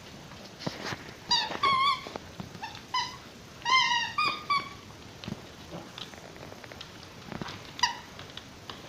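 A squeaky toy ball squeezed repeatedly as a pet plays with it: short wavering squeaks, several in quick succession in the first half and one more near the end, with faint knocks in between.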